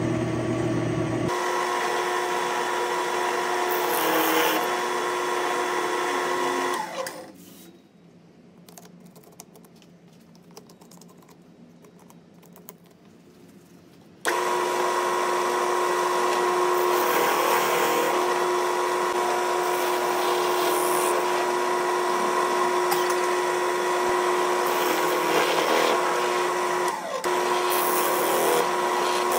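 Drill press boring into a walnut log with a large Forstner-type bit: a steady motor whine with the rasp of the bit cutting wood. About seven seconds in the motor winds down and it goes quiet, then the drilling cuts back in suddenly about fourteen seconds in and runs steadily.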